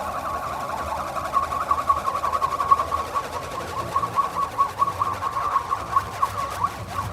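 Experimental improvised music: a steady high tone held throughout, with rapid chirping flicks of pitch darting around it.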